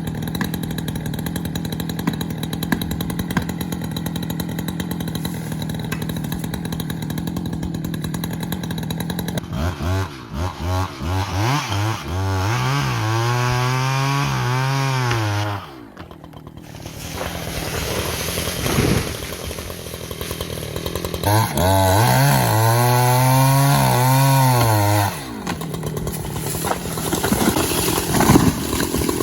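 Chainsaw engine running steadily, then revved up and down in a run of short throttle blips, ending in a longer held rev that drops away. It revs up again and holds for a few seconds about twenty seconds in, then settles back.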